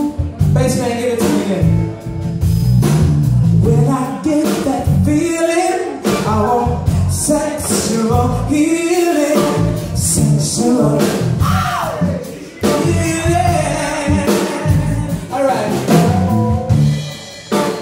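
Live band playing, with a man singing into the microphone over drum kit and electric guitars.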